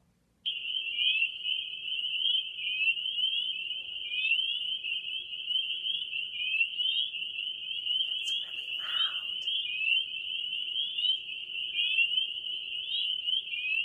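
A loud chorus of many spring peepers calling at once: a dense mass of short, high, upward-slurred peeps, starting about half a second in.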